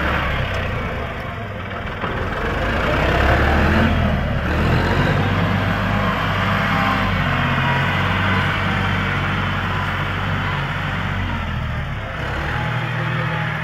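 John Deere 5065E tractor's diesel engine running steadily under load while pulling a disc plough through the soil.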